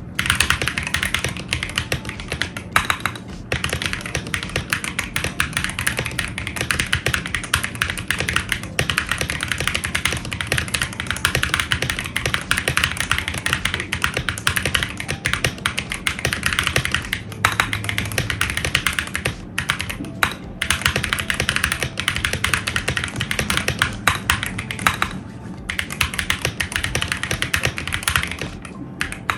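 Fast, continuous typing on a mechanical keyboard with Akko linear switches, a dense run of key clacks broken by a few short pauses.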